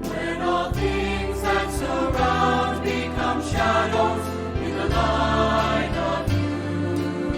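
Christian worship song: voices singing a slow melody over instrumental accompaniment with sustained bass notes.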